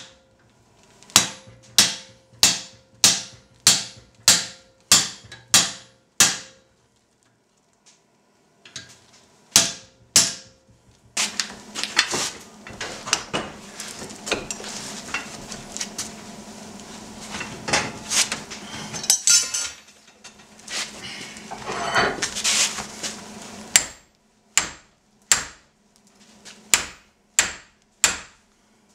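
Hand hammer striking a glowing steel bar on an anvil, a steady run of blows about one and a half to two a second. After a long stretch of steady rushing noise with scattered clanks, more even hammer blows near the end land on the hot bar clamped upright in a vise.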